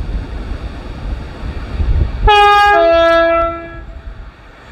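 A Grand Central Class 180 diesel multiple unit's two-tone horn sounding as it approaches the foot crossing: a short high note about two seconds in, followed by a longer lower note, together lasting about a second and a half. Before the horn, wind rumbles on the microphone.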